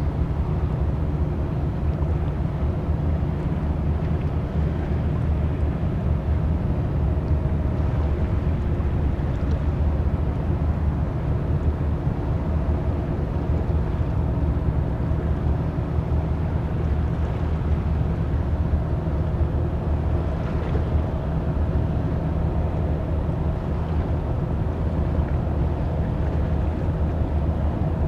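Steady low rumble of a large cruise ship's engines and machinery, with a faint steady hum above it, as the ship pulls out of port.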